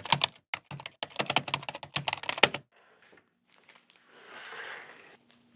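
Typing on a computer keyboard: a rapid run of keystrokes lasting about two and a half seconds, then a soft swell of hissing noise that rises and fades about four seconds in.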